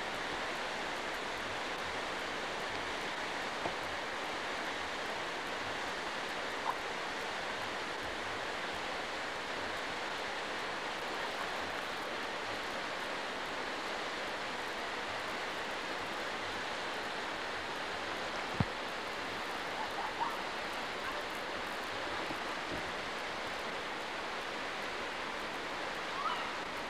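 Steady rush of river water pouring over a low dam and through shallow rapids, an even hiss-like roar with no breaks.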